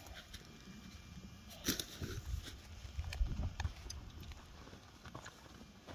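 A spoon working in a rehydrated camp meal pouch: scattered light clicks and knocks, a few louder ones around the middle.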